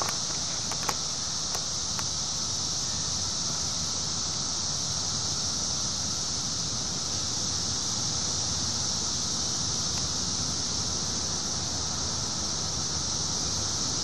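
Dense chorus of Brood XIV periodical cicadas: a steady, high-pitched droning hiss that holds unbroken throughout, with a few small clicks in the first two seconds.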